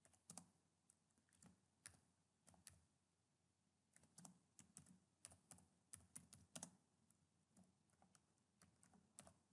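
Faint typing on a computer keyboard: irregular keystrokes, several in quick runs with short pauses between.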